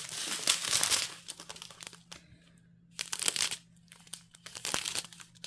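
Small plastic bags of diamond painting drills crinkling as a strip of them is handled, in several bouts with short pauses between.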